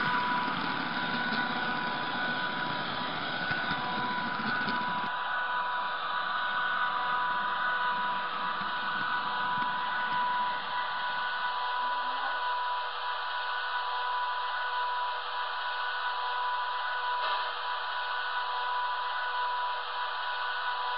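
Model train running with a small onboard camera riding on it: a steady electrical whine with several fixed high tones. A low running rumble drops away about five seconds in and fades further near halfway.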